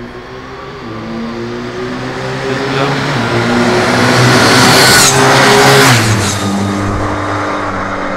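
Agni X01 electric racing motorcycle passing at speed: its whine and the rush of wind and tyres build up, are loudest about five seconds in, and the pitch drops as it goes by.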